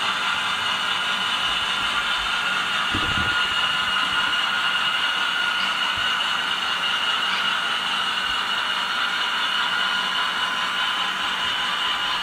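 HO scale model freight cars rolling along the layout's track with a steady whirring hiss, and a brief low rumble about three seconds in.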